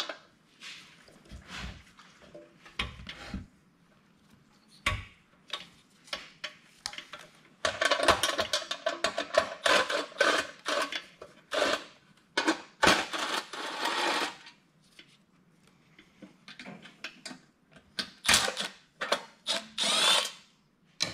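Cordless Milwaukee driver with an 8 mm socket running in several short bursts as it backs out the air shroud screws. The longest runs come in the middle and two more near the end, with clicks and knocks of handling in between.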